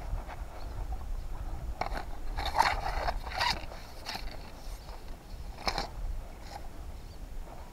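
Rustling and scraping of a fishing rod and gear being handled in the grass, a few louder scrapes about two to three and a half seconds in and again near six seconds, over a low rumble of wind on the microphone.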